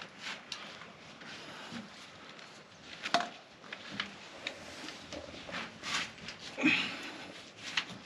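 Scattered knocks, scrapes and rustling of people clambering through a narrow bunker entrance shaft, with a louder knock about three seconds in and another near the end.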